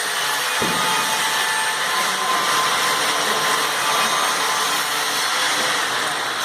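Oxyacetylene welding torch flame burning with a steady hiss.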